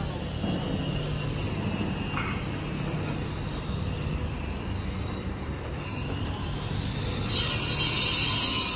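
Street ambience: a steady low rumble of distant road traffic. About seven seconds in, a loud steady hiss starts suddenly and runs on.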